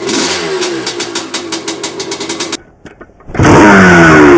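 Honda CR500's two-stroke single-cylinder engine idling with a fast, even popping, which cuts off about two and a half seconds in. After a short hush a dirt bike engine comes in much louder, its pitch swinging up and down as it revs under riding.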